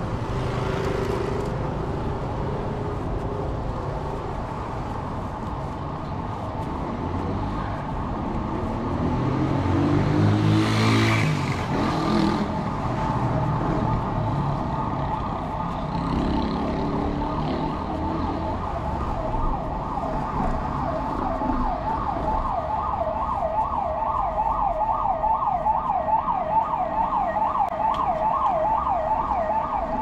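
Emergency vehicle siren sounding over city street traffic, shifting into a fast yelp about twenty seconds in and getting louder toward the end. A vehicle passes close by about ten seconds in.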